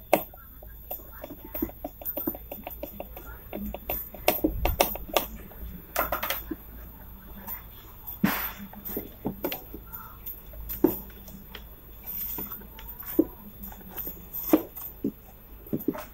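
Irregular clicks, taps and knocks of handling: the amplifier board on its mounting panel and its wires are moved about against the open wooden subwoofer cabinet.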